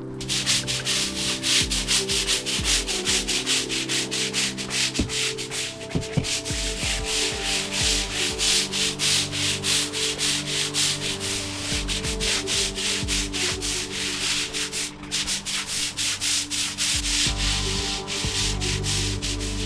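Stiff wire brush scrubbing hard across wet patio paving in quick back-and-forth strokes, working bleach into the stone.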